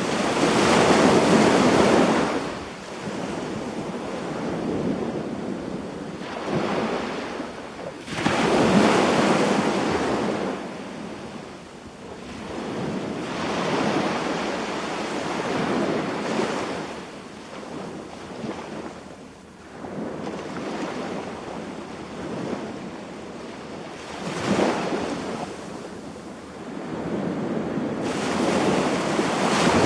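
Waves breaking and washing up the beach, surging in every few seconds with a hiss as each one runs in and draws back; the biggest come about a second in, around nine seconds in, and near the end.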